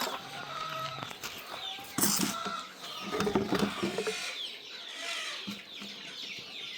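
Boschveld chickens calling: chicks peep over and over in short falling chirps while hens cluck. About two seconds in there is a brief rattle.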